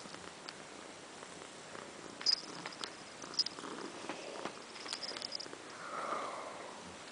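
Kitten purring, with light rustling clicks and a short falling squeak about six seconds in.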